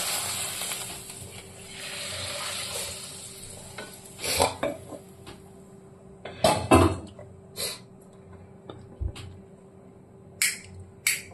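A kadhai sizzling on the gas stove, fading over the first few seconds. It is followed by a few clanks of pots and utensils being handled, and near the end two sharp clicks of a gas-stove spark lighter at the burner.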